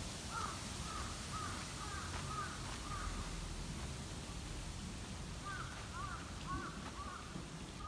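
A bird calling in two runs of short, repeated, bending calls, the first from about half a second to three seconds in and the second from about five and a half to seven seconds in, over faint outdoor ambience.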